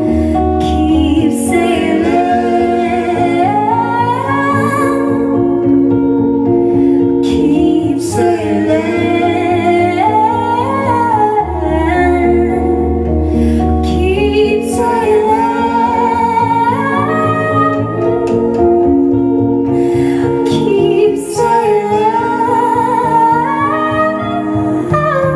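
Live trio music: a woman singing a gliding melody into a microphone over electric guitar and plucked upright double bass.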